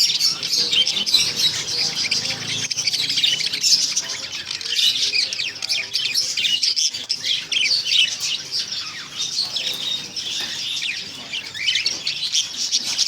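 Hagoromo budgerigars chattering: a dense, unbroken stream of quick high chirps and warbling twitters.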